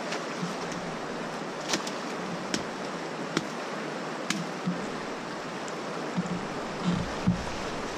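Steady rush of creek water, with four sharp cracks about a second apart as limbs are cut off a fallen tree, then a few dull thumps near the end.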